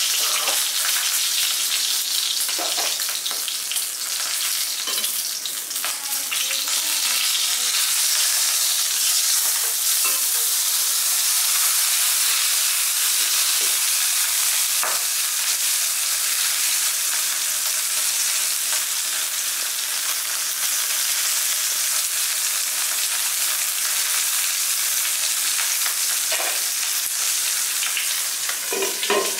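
Torpedo scad frying in hot oil in a nonstick wok with a steady, high sizzle. A few light knocks and scrapes of a metal spatula sound as the fish is turned.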